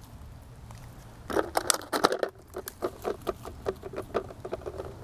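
Rapid, irregular pattering and clicking in dry leaf litter, starting about a second in, as a branch is moved aside to uncover soldier crabs (land hermit crabs).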